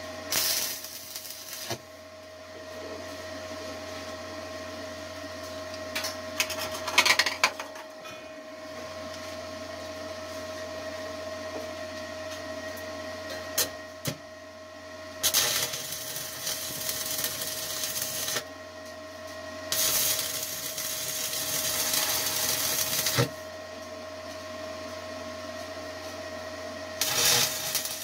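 Stick welding arc from a Forney 100ST welder crackling as 3/32-inch 6013 rods run at 75 amps on 1/8-inch steel plate. It comes in several runs of a few seconds each, with pauses between, over a steady hum.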